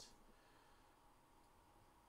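Near silence: faint room tone with a low steady hiss.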